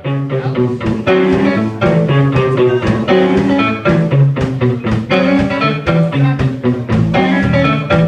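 A live band playing rock and roll on two electric guitars and a drum kit, coming in at full volume right at the start with a steady beat.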